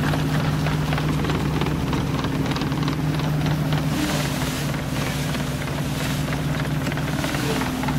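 A 1928 belt-driven threshing machine running steadily while threshing oaten straw, with the tractor that drives it. The machinery gives an even low hum under a steady noisy rush.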